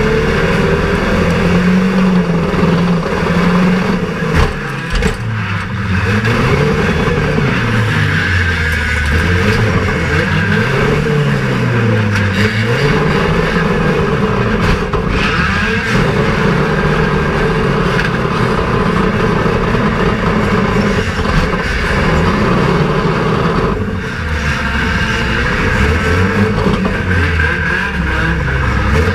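Banger race car's engine heard from inside the cabin, revving up and down over and over as the car is driven hard on a dirt track.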